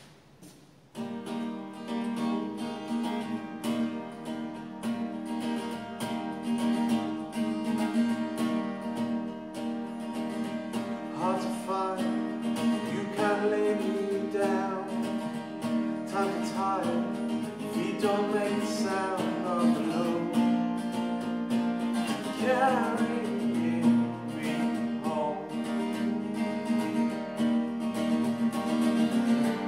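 Acoustic guitar being strummed as a song intro, starting about a second in and carrying on steadily.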